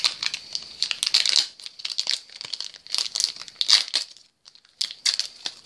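A trading-card booster pack's wrapper crinkling and tearing as it is opened by hand, in irregular crackly bursts with a short lull about four seconds in.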